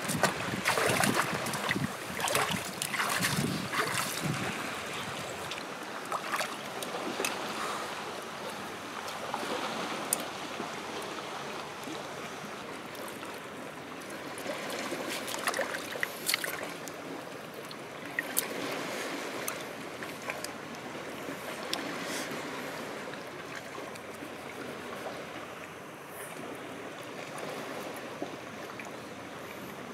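Shallow seawater sloshing and splashing around rocks, busiest in the first few seconds, with scattered small clicks and knocks.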